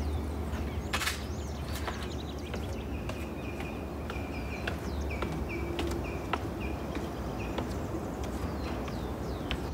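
Outdoor ambience of birds chirping, with a run of short repeated notes through the middle, over a steady low rumble. Scattered footsteps on concrete steps sound among the chirps.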